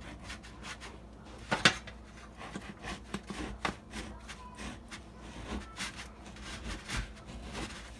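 A plain-edged kitchen knife sawing back and forth through a frozen French bread loaf, with crunchy scraping of the crust and clicks of the bread and blade against the metal pan beneath. One sharp knock comes about one and a half seconds in. The knife is a struggle to cut with because it is not serrated.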